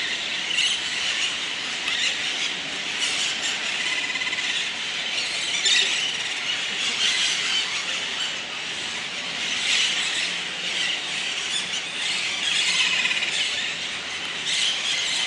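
A flock of parakeets screeching without pause, many harsh calls overlapping into one dense chorus, as they gather in a tree to roost for the night.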